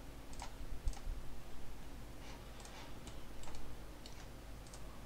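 Scattered light clicks of a computer keyboard and mouse, a few at a time at irregular intervals, while a 3D viewport is navigated.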